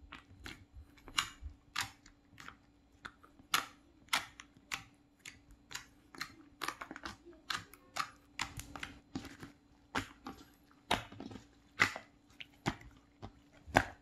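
Fingertips pressing and poking into glossy slime, making a run of sharp sticky clicks and pops, about two or three a second and uneven in loudness.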